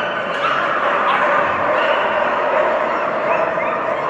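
Dogs barking and yipping without a break, one continuous din.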